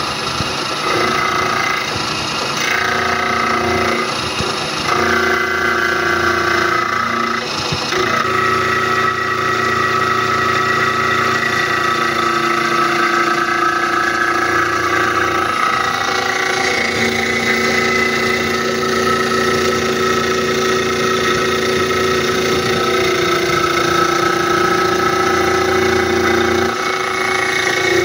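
CNC-4040 desktop milling machine's spindle driving an end mill through steel: a steady machining whine made of several held tones. The mix of tones shifts several times in the first eight seconds, then mostly holds steady.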